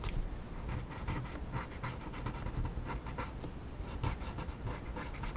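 Paper tortillon rubbing back and forth over a paper tile in a quick run of soft, scratchy strokes, blending freshly laid pencil graphite.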